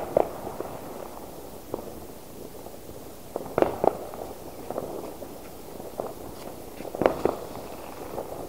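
Fireworks going off: three pairs of sharp bangs, a pair about every three and a half seconds, with fainter pops between. Footsteps on a wet, slushy path run under them.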